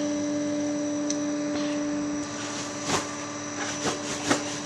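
Steady mechanical hum that cuts off about two seconds in, followed by a few short knocks and rustles.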